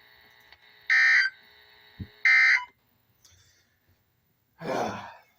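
Emergency Alert System end-of-message: two short, loud bursts of shrill SAME data tones about a second and a half apart over a faint steady hum. After them the hum cuts off, and a brief rush of noise comes near the end.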